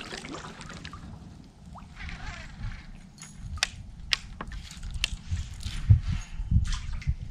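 Scattered sharp clicks and knocks from a fishing kayak as the paddle is set down and the rod and reel are handled, mostly in the second half, with low thumps near the end.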